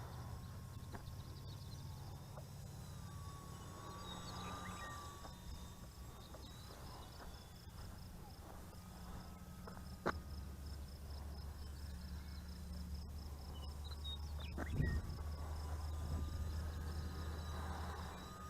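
Insects trilling in a steady, evenly pulsed series over a low outdoor rumble, with a faint thin whine wavering in and out. Two sharp clicks come about ten and fifteen seconds in.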